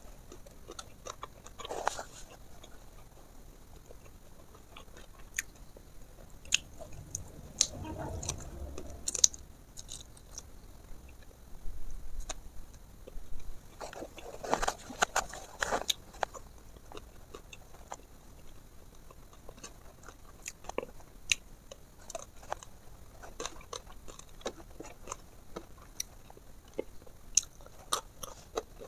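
A person eating fried fish and rice by hand: chewing and crunching with wet mouth clicks and smacks, scattered irregularly, with a few longer spells of chewing.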